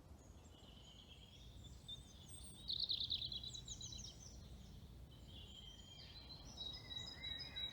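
Songbirds singing in spring woodland: scattered high phrases, the loudest a quick trill of falling notes about three seconds in, with more song near the end over a faint low background rumble.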